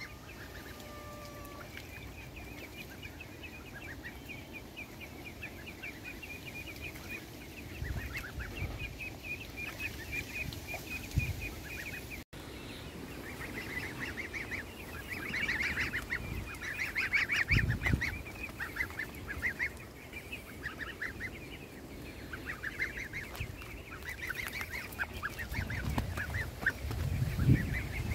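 Goslings peeping: a rapid, continuous chatter of short high calls that grows denser and louder about halfway through. A few dull low thumps are mixed in, the loudest near the end.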